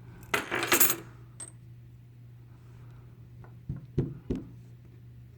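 Small metal lock pins from a disassembled padlock clattering onto a hard surface in a short rattle about half a second in, then a single click. Three light knocks follow near four seconds in.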